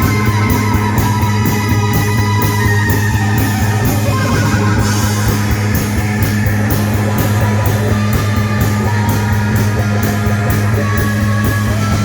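Live rock band playing: electric guitar over a held low note, with quick, steady ticking up high from the drums.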